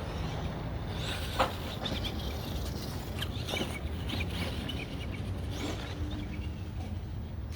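Birds chirping over a steady low rumble, with one sharp knock about a second and a half in.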